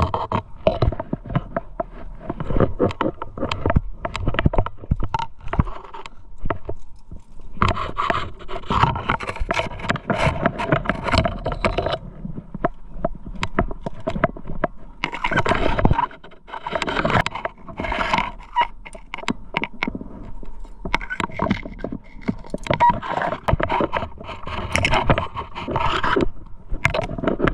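Close-up scraping, rubbing and clinking of a rock climber's hands, clothing and gear against the rock while placing and clipping quickdraws under a roof. The sound comes as a dense, irregular run of scrapes and clicks with longer noisy stretches.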